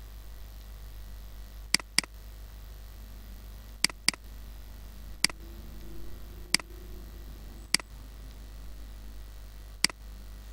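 Computer mouse button clicking, eight sharp clicks in all, two of them quick double-clicks, over a low steady hum.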